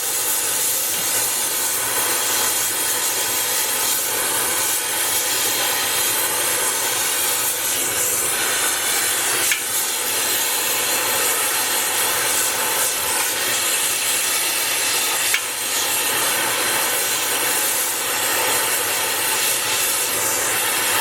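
Steady hiss of a gas torch flame heating a steel frame rivet for hot riveting.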